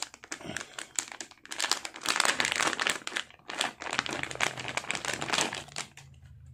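Crinkling of a metallized plastic anti-static bag as it is pulled open and handled. It comes in two louder spells and dies down near the end.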